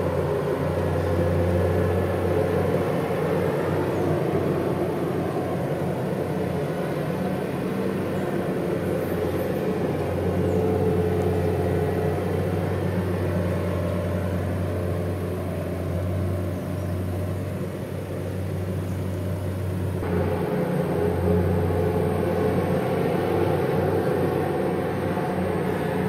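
Backhoe dredge's diesel engine running with a steady low drone.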